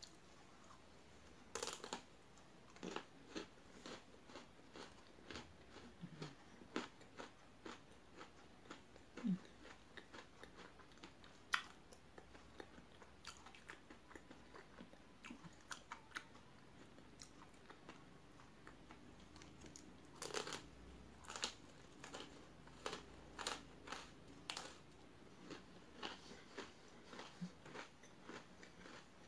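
Crunching and chewing of a mouthful of Pocky chocolate-coated biscuit sticks: irregular crisp crunches, with clusters of louder ones near the start and about two-thirds of the way through.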